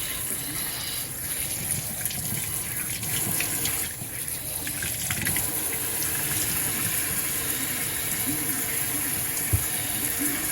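Tap water running steadily into a sink while hair is washed under it, with a short knock near the end.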